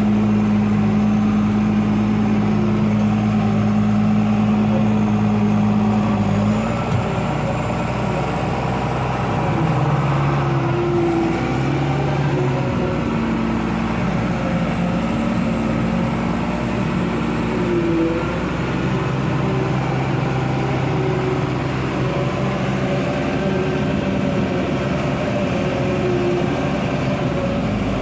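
Tractor engine running steadily, heard from inside the cab while hauling a silage trailer. About seven seconds in the engine note shifts, and a faint high whine carries on from there.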